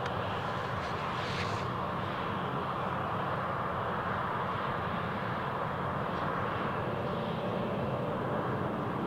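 Embraer E190's twin General Electric CF34-10E turbofan engines running steadily as the airliner moves along the runway.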